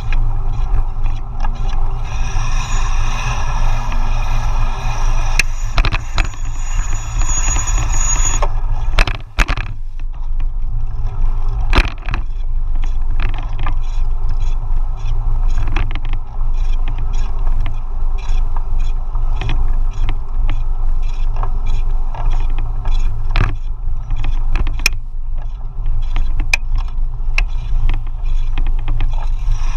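A KBO Hurricane being ridden, with the unexplained noise its owner is reporting to support: a high whine from about two seconds in to about eight seconds in, then a long run of quick, irregular clicks and rattles. A heavy low rumble runs beneath it all.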